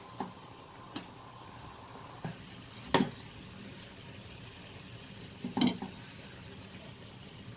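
A stainless steel spatula clinks against a steel pot five times as rice vermicelli is lifted out of boiling water, the loudest clinks about three seconds in and near six seconds in. Underneath is a steady low fizz of frothing water at the boil.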